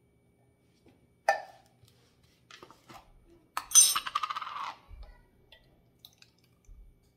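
Emptied metal tomato cans being handled: a sharp metal knock about a second in, then a louder clatter with a brief metallic ringing about three and a half seconds in, followed by a few faint clicks.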